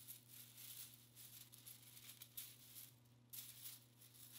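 Faint rattling of a 3D-printed PLA chain-link mesh, its loose plastic links clicking against each other in short soft bursts as it is flexed by hand, over a faint steady low hum.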